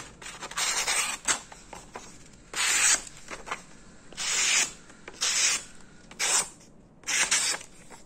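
Small, freshly sharpened Victorinox knife slicing through a sheet of paper in about six short strokes, each a dry hissing rasp. The quick, clean cuts are the sign that the edge now cuts well.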